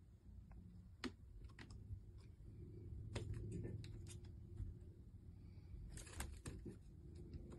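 Near silence with faint, scattered light taps and clicks, a few at a time, most of them about a second in, around three seconds in and just after six seconds.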